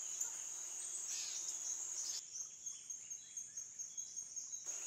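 Steady high chirring of crickets, with a few faint bird chirps about a second in.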